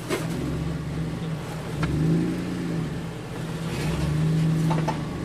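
Jeep JK Wrangler engine revving under load as it crawls up a rock climb, the revs swelling twice, with a few sharp knocks from the rocks.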